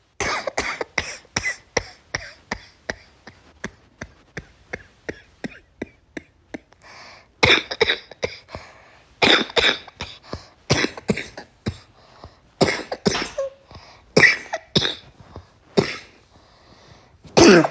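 A woman's congested cough, coughing over and over: a quick run of short coughs that grows fainter over the first six seconds or so, then louder fits of several coughs at a time, the loudest near the end.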